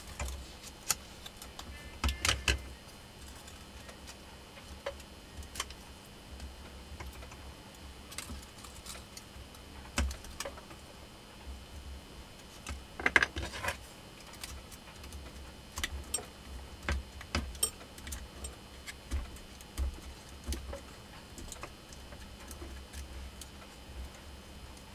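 Scattered small clicks, taps and rustles of enamelled copper winding wire and a hand tool against an angle-grinder armature being hand-rewound. There are louder clicks about two seconds in and again about thirteen seconds in, over a faint steady hum.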